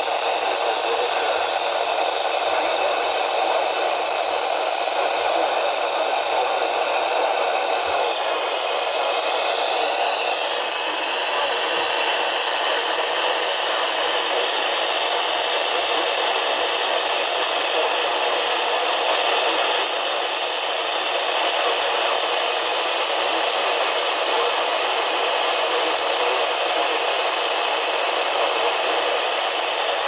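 Midland ER210 weather radio on NOAA weather channel 4 giving out steady hissing static, with no broadcast voice or alert tone coming through.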